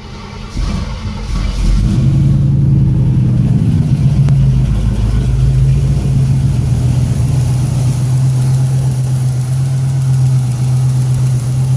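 Oldsmobile 403 V8 running with its valve covers off, picking up over the first couple of seconds and then settling to a steady idle. The exposed valvetrain is where the owner is chasing a ticking noise.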